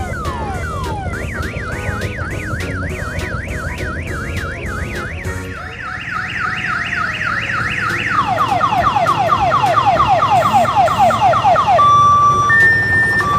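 Electronic multi-tone siren cycling through its patterns: repeated falling sweeps, a fast up-and-down yelp, quick falling chirps, then alternating two-pitch beeps near the end. A low engine rumble runs under it for the first five seconds or so.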